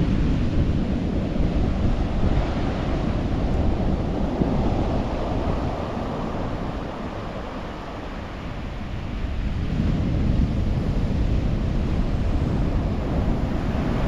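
Sea surf washing onto the beach, with wind buffeting the microphone; the rush eases about halfway through and then builds again.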